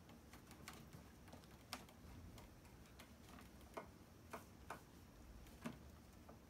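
Near silence, broken by about six faint, irregularly spaced light clicks and taps from two cats tussling in a wire pet cage.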